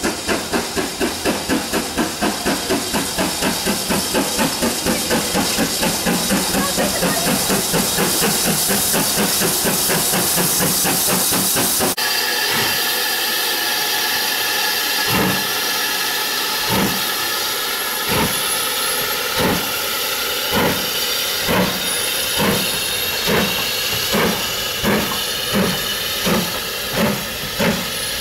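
Steam locomotive exhaust: first a BR Standard Class 4 4-6-0 working hard, its chuffs quick and even at about three or four a second. After a cut about twelve seconds in, BR Standard Class 5 4-6-0 No. 73082 starts away from rest, its chuffs speeding up from about one every second and a half to several a second over the hiss of steam blowing from its open cylinder drain cocks.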